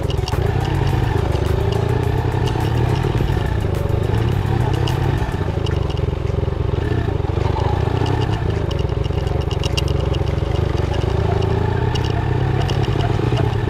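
Motorcycle engine running at low speed with a steady low rumble, with frequent short clicks and rattles as the bike rolls over a rough, potholed dirt road.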